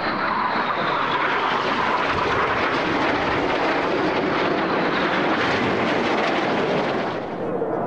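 Red Arrows BAE Hawk T1 jets, each with a Rolls-Royce Turbomeca Adour turbofan, flying past: a loud steady jet roar with a high whine that falls in pitch over the first few seconds. The roar drops off suddenly near the end.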